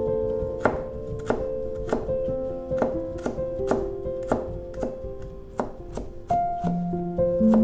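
Kitchen knife chopping food on a cutting board in a steady rhythm, about one and a half strokes a second, over background music with sustained notes.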